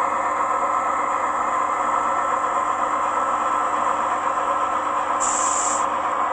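Class 68 diesel locomotive sound file played through a model locomotive's Zimo MS DCC sound decoder speaker: the engine ticking over steadily, with a short air hiss about five seconds in, the brake release that comes just before the loco moves off.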